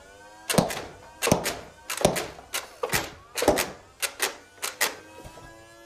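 Toy foam-dart blaster firing foam darts one after another into a cardboard box: about ten sharp snaps over four and a half seconds, some in quick pairs.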